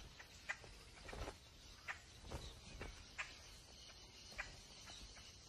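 Faint, scattered clicks and rustles of vultures pecking and tugging at the tough hide of a dead rodent.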